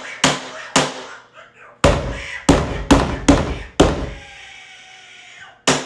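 Pounding on a closed interior door: two knocks, then five heavy thuds about half a second apart, then one more bang near the end.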